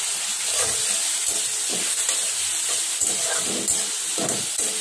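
Spice paste frying in hot oil in a metal kadai, with a steady sizzle and a steel spatula scraping and stirring it against the pan in irregular strokes.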